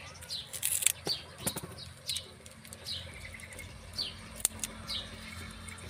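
Small birds chirping over and over in short falling chirps, with a few sharp clicks of scissors snipping the bouquet's uneven stems, the loudest within the first second and a half and again near the end.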